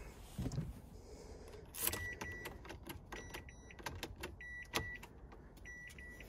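A car's electronic warning chime beeping in short, high pairs, starting about two seconds in and repeating, among light clicks and rattles.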